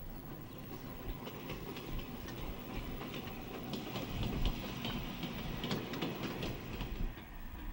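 Short freight train, a small ED20 electric locomotive hauling wooden wagons, running past with its wheels clicking over the rail joints. The clicks come unevenly over a low rumble and are thickest in the middle.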